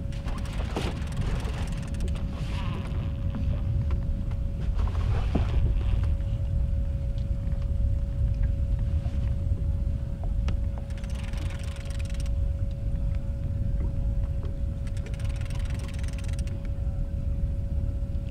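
Boat's outboard motor running with a steady low rumble and a thin steady whine. Two short bursts of hiss come in the second half, a few seconds apart.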